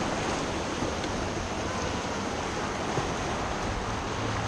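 Whitewater of the Gallatin River rushing steadily, with a single short knock about three seconds in.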